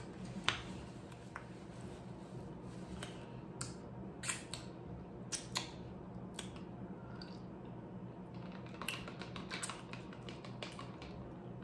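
Scattered soft clicks and crackles of eating close to the microphone: chewing and handling crunchy nacho chips, over a steady low hum.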